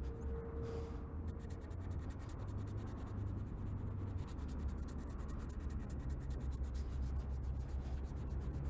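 A hand rubbing lens-restoring polish into a plastic indicator lens, a continuous scrubbing, with a low steady hum underneath.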